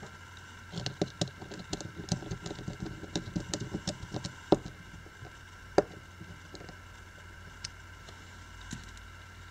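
A small precision screwdriver working a tiny screw in a Sony Xperia Z1's frame: a quick run of light clicks and taps for about four seconds, two sharper clicks, then a few scattered taps.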